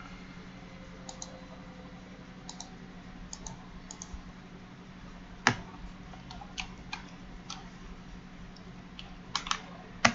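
Scattered sharp clicks and taps from drawing at a computer with a pen tablet, several coming in quick pairs. The loudest click comes about five and a half seconds in, with another strong cluster near the end. A steady low hum runs underneath.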